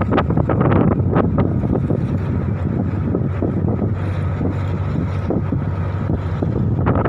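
Strong gusty wind buffeting the microphone: a loud, continuous low rumble with frequent short crackles and rustles, picking up again near the end.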